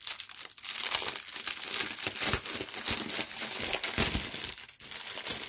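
Small plastic bags of diamond-painting drills crinkling and crackling as they are handled and shuffled together.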